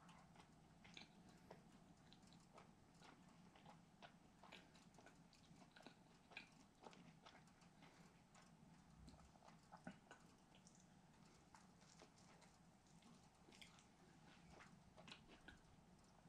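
A man chewing a mouthful of Popeyes spicy fried chicken sandwich: faint, irregular clicks and crunches of chewing.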